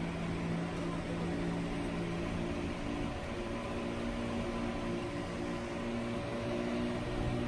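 Steady mechanical hum: several low droning tones over an even hiss, holding level throughout.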